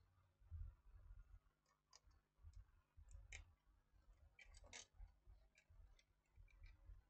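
Near silence with a few faint clicks and taps as a circuit board is handled and turned over, the clearest a little after three seconds and near five seconds in.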